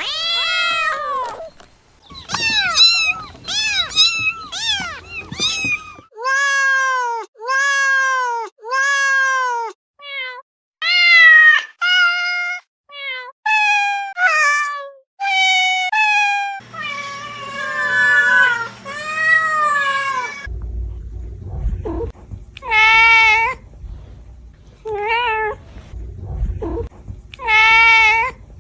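Domestic cats meowing, a string of separate drawn-out meows, each rising then falling in pitch, from several different cats one after another; the later ones come over a low background rumble.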